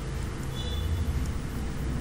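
Low, steady background rumble with a faint constant hum.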